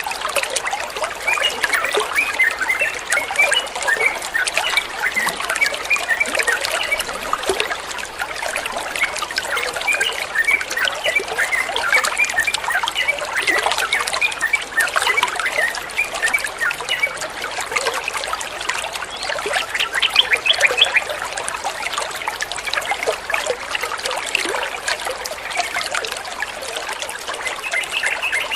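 Water trickling and burbling steadily, a continuous running-water sound.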